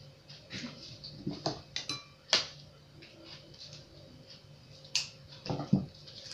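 Plastic sachets of sweetened condensed milk handled and snipped open with kitchen scissors: a few sharp clicks and snips, the loudest about two and a half seconds in and another near five seconds, then a couple of dull knocks against the table near the end.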